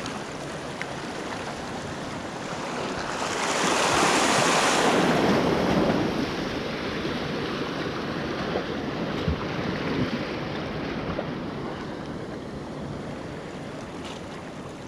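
Sea waves washing against shoreline rocks, with one louder surge of surf about three seconds in that ebbs away over the next few seconds.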